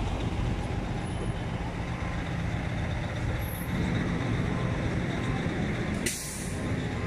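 Idling diesel engines of parked semi-trucks and a coach bus, a steady low rumble, with a short hiss about six seconds in.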